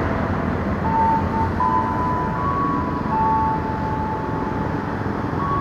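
Electric commuter train (KRL Commuterline) approaching the station, with a steady rumble and a high whine that shifts up and down in pitch in steps.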